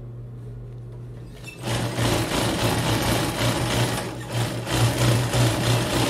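Sewing machine stitching through denim jeans at speed, starting about a second and a half in and stopping just before the end, over a steady motor hum.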